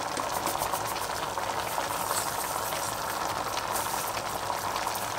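A pot of browned pork, vegetables, potatoes and cabbage with a little water added, bubbling and sizzling steadily on the hob.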